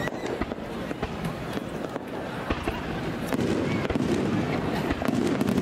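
Fireworks display going off: scattered sharp bangs and crackles over a steady din of background voices, getting louder a little past halfway.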